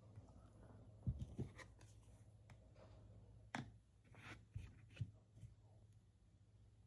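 Faint handling noises of nail-stamping tools: light clicks and knocks about a second in and again between three and a half and five seconds, with a short scratchy scrape in between.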